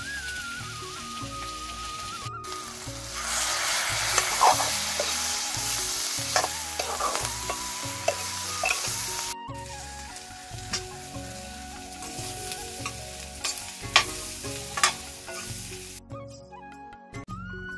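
Chicken gizzard pieces with onion and green capsicum sizzling in a black iron wok as a steel spoon stirs them, with sharp clicks and scrapes of the spoon against the pan. Music comes in near the end.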